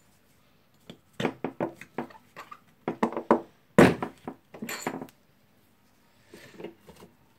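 Metal parts of a rotary hammer drill's hammer mechanism knocking and clinking as they are pushed out of the cylinder and handled on the workbench: a run of irregular knocks and clicks, some briefly ringing, the loudest about 4 s in.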